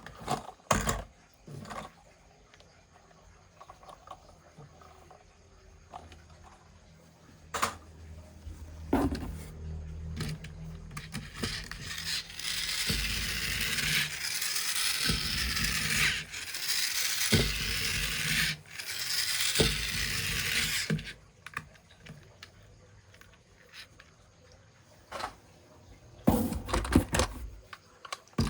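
Plastic toy vehicles and their packaging being handled: scattered clicks and knocks, with a stretch of scraping noise lasting several seconds about halfway through.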